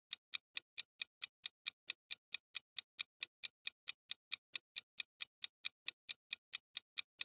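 Clock-ticking sound effect of a quiz countdown timer: short, sharp, evenly spaced ticks, about four or five a second.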